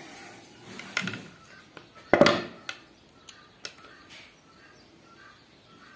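Small hard parts being handled and set down on a workbench: a click about a second in, a louder knock about two seconds in, then a few lighter taps.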